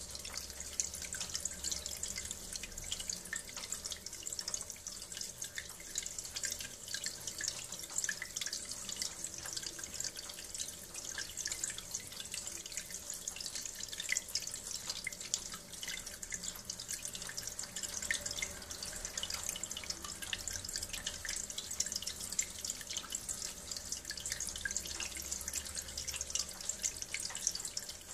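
Flush water from a heating circuit being desludged, pouring out of a braided hose into a tub in a steady splashing stream.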